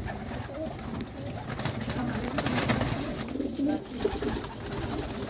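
A loft full of domestic pigeons cooing, many soft coos overlapping continuously.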